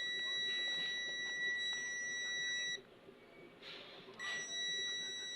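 Electronic buzzer giving a steady high beep for about three seconds, then stopping. After a short gap with faint handling noise it sounds again about four seconds in.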